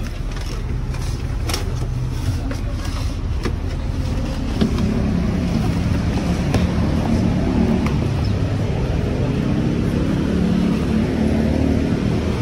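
Bus engine running with road noise, its engine note rising about four to five seconds in. A few light clicks in the first few seconds.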